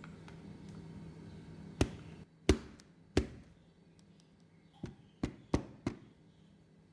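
A round metal springform cake pan full of cheesecake batter being knocked down on the counter seven times to knock out air bubbles: three single knocks about two-thirds of a second apart, the second the loudest, then four quicker ones.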